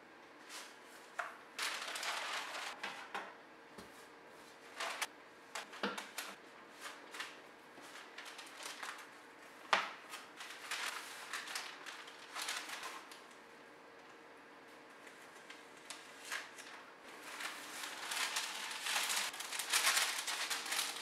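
Baking paper rustling and crinkling in irregular bursts as it is handled around a proofed bread dough, with a few light knocks as the cane proofing basket is turned over and set down. The longest and loudest crinkling comes near the end.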